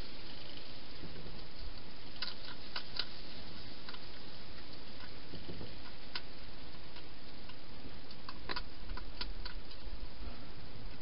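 Wild European hedgehog chewing food from a dish, irregular crisp clicks and crunches in small clusters, over a steady hiss.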